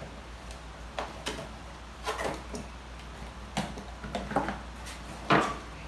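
A cardboard flat-pack box being opened by hand: a string of separate knocks, scrapes and rustles from the flaps and tape, the loudest near the end.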